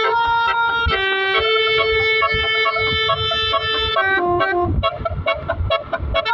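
A bus's basuri (telolet) multi-tone horn playing a tune: held notes that step from one pitch to the next, one long note in the middle and quicker changes of note near the end.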